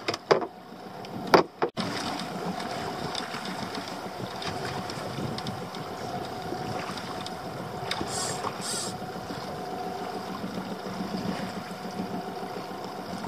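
Spinning reel being wound in from a small open boat, over water washing around the hull and a faint steady hum. There are a few sharp clicks in the first two seconds and two short high hisses about eight seconds in.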